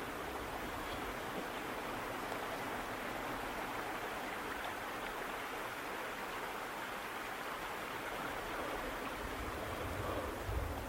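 Steady rushing of a small stream of running water, with a few low thumps near the end.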